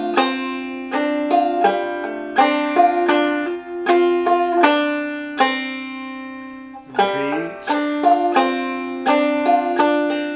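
Clawhammer banjo in Old F tuning (fCFCD), playing a slow melodic phrase of single plucked notes with hammer-ons. About five and a half seconds in, one note rings out and fades before the playing picks up again.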